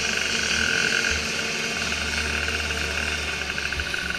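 Micro ATV engines running in a race, a steady continuous drone.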